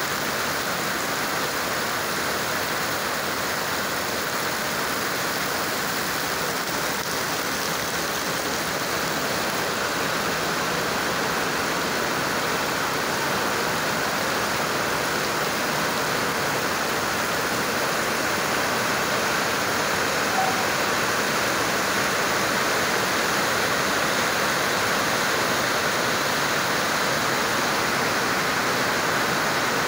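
Heavy downpour: a steady, unbroken rush of rain and pouring water.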